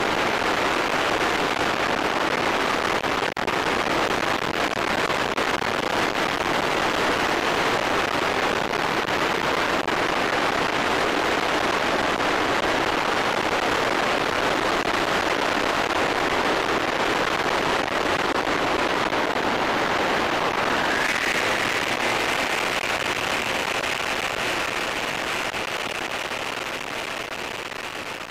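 Ultralight aircraft in flight, heard from an onboard camera: a dense, steady rush of airflow and engine noise on approach to land. About two-thirds of the way through, a steady high tone comes in, and the sound fades out near the end.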